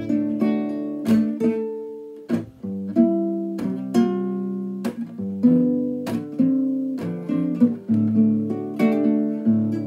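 Acoustic guitar strummed, one chord after another at a steady, easy pace, each chord ringing on until the next.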